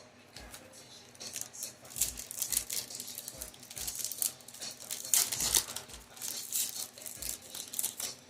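Foil booster-pack wrappers crinkling and trading cards rustling and flicking as Yu-Gi-Oh! packs are opened and sorted: a busy run of crackles, loudest about five seconds in.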